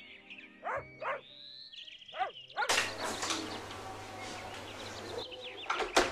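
A dog barking three short times, with birds chirping. From about three seconds in a steady hiss comes in, and a sharp knock sounds near the end.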